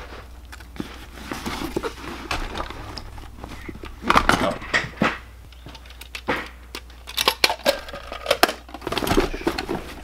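Tools being handled and packed into a fabric tool bag: irregular metal clicks, clatters and rattles, including a metal drill-bit case being opened with its bits rattling. The handling is busiest about four seconds in and again through the later part.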